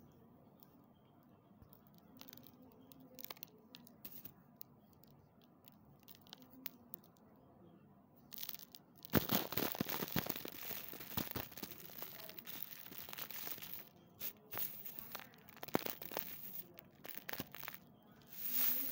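Block of gym chalk being squeezed, broken and crumbled between fingers: faint crackles at first, then from about eight seconds in a loud, dense run of crunching as the chalk breaks up, going on in shorter bursts of crunching to the end.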